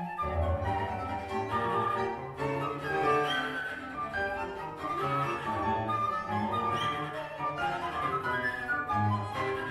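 Orchestral classical music with bowed strings, played through a pair of Penaudio Serenade floorstanding speakers and picked up by a microphone in the listening room.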